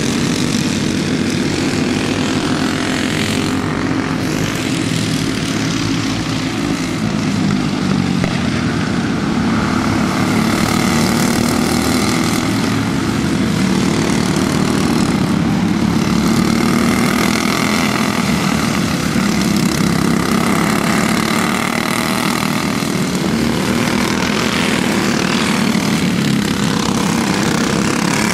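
Racing kart engines buzzing at speed, a steady drone whose pitch rises and falls as the karts accelerate and lift off.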